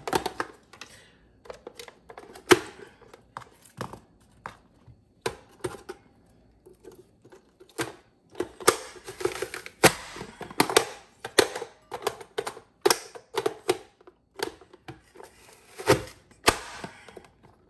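Knife cutting an onion on a cutting board: irregular sharp knocks of the blade on the board, some coming in quick runs.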